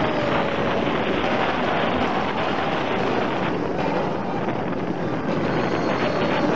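Rush of wind on the microphone with the rumble of a steel roller coaster train (Medusa, a Bolliger & Mabillard floorless coaster) running at speed on its track, heard from a rider's seat.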